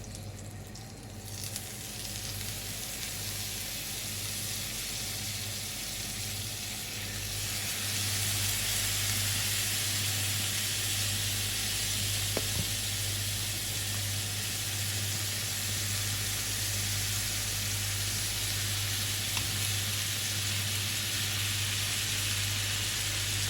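Marinated chicken pieces frying in butter in a hot pan: a steady sizzle that builds over the first few seconds, grows louder about seven seconds in, then holds.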